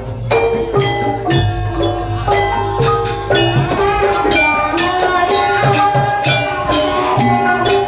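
Live Banyuwangi gamelan music accompanying a gandrung dance: struck bronze metallophones ringing over drums and gong at a steady beat.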